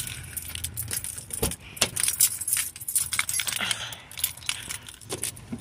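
Keys jangling and clinking as they are handled, with a dull thump about a second and a half in.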